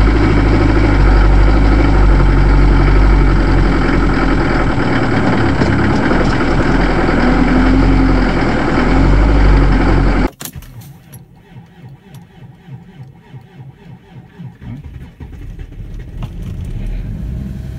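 Cold diesel engine running roughly just after a hard start in deep frost, heard from inside the car's cabin. It cuts off abruptly about ten seconds in, leaving a quiet stretch of small clicks, and another engine's sound comes up near the end.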